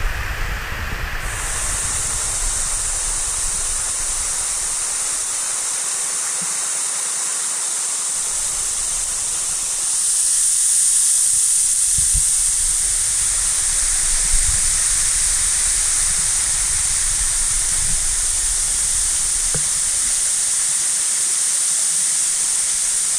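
Waterfall: a steady rush of falling water and spray, a high even hiss that gets a little louder about ten seconds in.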